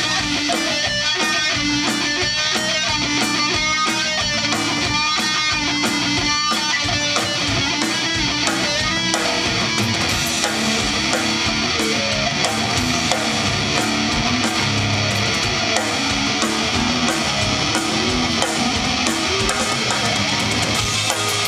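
Live heavy punk rock band playing: electric guitars, electric bass and drum kit. About nine seconds in, the choppy, rhythmic guitar part gives way to a denser, more sustained section.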